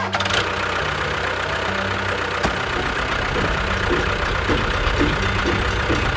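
Small motor of a home-built miniature construction machine running steadily.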